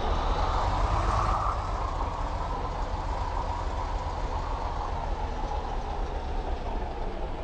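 A heavy road vehicle passing by, engine and tyre noise swelling about a second in and then slowly fading. No horn sounds.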